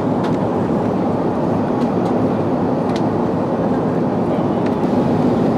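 Steady roar of cabin noise inside an Airbus A380 in flight: engine and airflow noise heard from a window seat, with a few faint ticks.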